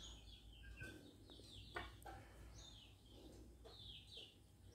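Faint chirping of small birds: clusters of short, high, falling notes every second or so, with a light click about two seconds in.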